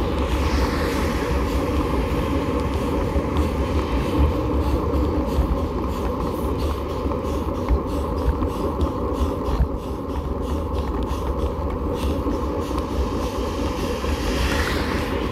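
Steady low rumble of a bicycle rolling slowly uphill on rough asphalt, heard through a bike-mounted camera: road vibration and wind on the microphone, with scattered faint clicks.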